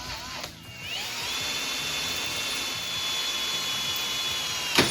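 Electric drill spinning up with a rising whine about a second in, then running at a steady pitch as it bores through the steel bottom of a shop table, stopping abruptly near the end.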